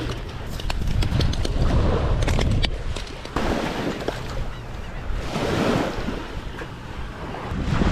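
Small waves washing up onto a sandy beach, the wash swelling and falling back twice, over a steady low rumble of wind on the microphone. A few light clicks in the first few seconds.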